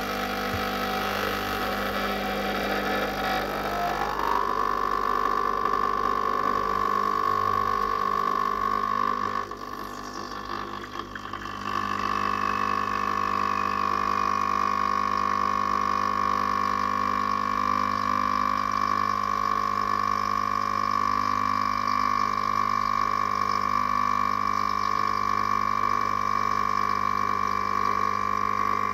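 Espresso machine's pump humming steadily as it pushes water through the coffee puck during extraction. Its main tone slides up in pitch about four seconds in, and the hum briefly drops in level about ten seconds in.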